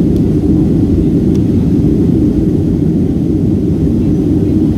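Cabin noise inside a Boeing 757-200 airliner climbing after takeoff: the twin jet engines and rushing airflow make a steady, low, even rumble with no change in pitch.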